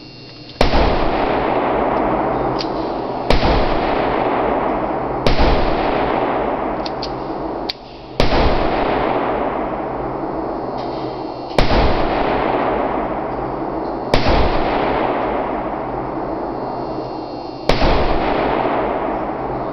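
Seven gunshots at uneven intervals of two to three and a half seconds, each followed by a long ringing echo that dies away over a couple of seconds in the enclosed range.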